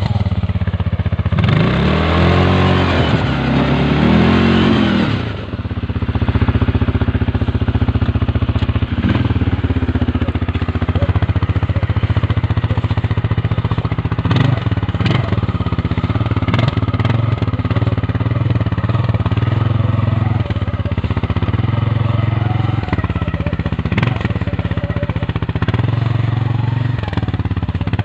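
CFMoto CForce 550 ATV's single-cylinder engine revved up and down in several quick bursts as it works free of deep snow, then running steadily under load as it climbs the snowy track, with a few sharp clicks.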